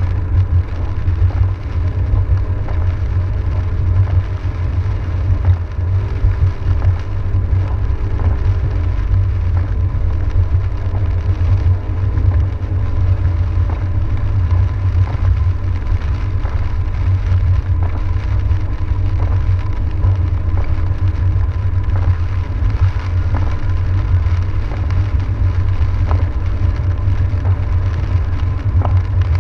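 Car driving on a wet road, heard from inside the cabin: a steady low rumble of engine and tyres on the wet pavement, with scattered light ticks of rain on the car.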